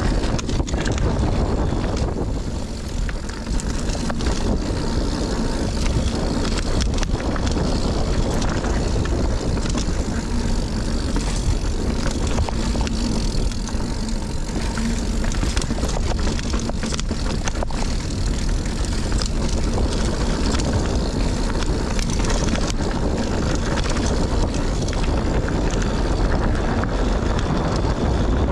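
Wind rushing over an action camera's microphone as a Scott Ransom mountain bike descends a dirt trail, with tyre noise and the bike rattling in many short knocks.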